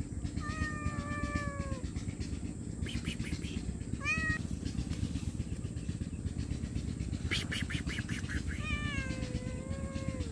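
Stray cat meowing three times: a long, drawn-out meow near the start, a short rising one about four seconds in, and another long meow near the end.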